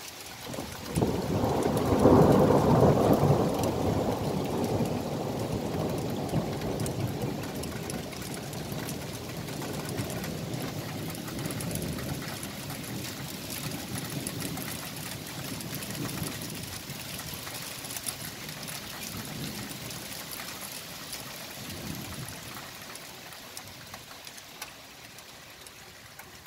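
Thunder during a storm: a rumble breaks in about a second in, is loudest soon after, then rolls on and fades slowly. Steady rain pours down on pavement throughout.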